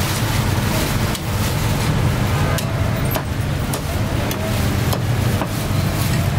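Steady low rumble of street traffic, with a cleaver chopping roast duck on a wooden chopping block: a run of about six sharp knocks through the middle.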